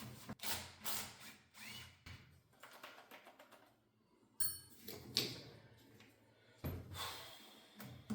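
Hand tool working on the metal parts of a backhoe's hydraulic control assembly: scattered clicks, knocks and scrapes as a part is wiggled loose, with a brief squeak about four seconds in.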